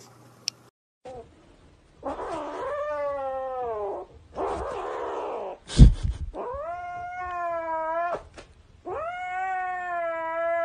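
Kitten meowing in three long, drawn-out calls, the first sliding down in pitch and the later two rising, then holding level. Between the first two calls comes a breathy, noisy stretch, and about six seconds in there is a loud thump.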